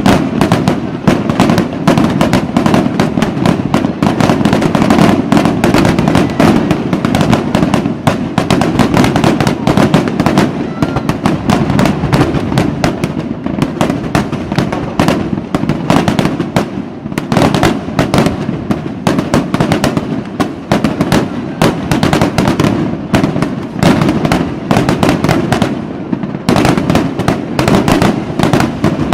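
Fireworks going off in a dense, unbroken barrage: many sharp bangs and crackles every second over a steady low rumble.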